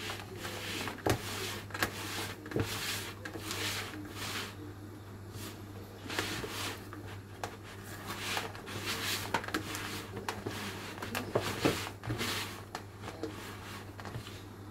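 Flour and sticky yeast dough being stirred in a large plastic bowl with a metal utensil: repeated rustling, scraping strokes, with a few sharp clicks of metal against the bowl.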